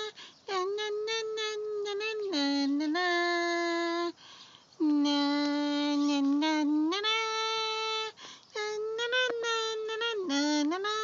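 A high voice singing a tune without clear words, in phrases of long held notes that step up and down, with brief pauses about four and eight seconds in.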